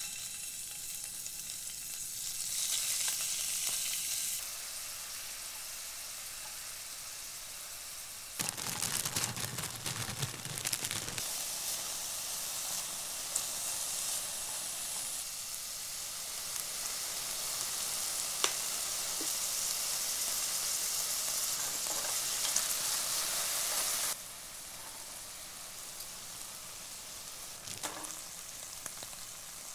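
Food sizzling in a hot frying pan, a steady hiss with a few sharp ticks. About eight seconds in it swells louder and fuller for roughly three seconds, and it drops quieter a few seconds before the end.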